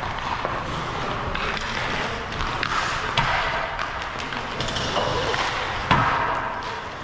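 Ice hockey skates scraping across the ice, with sticks and pucks clacking throughout. Two sharp knocks stand out, about three and six seconds in.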